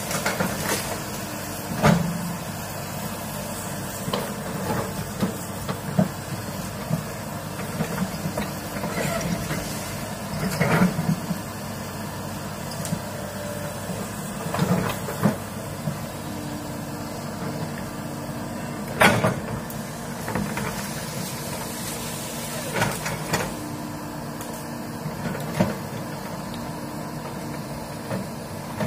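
Komatsu crawler excavator's diesel engine running steadily under working load while the boom shoves through brush and small trees. Sharp cracks and knocks come several times, the loudest about two-thirds through.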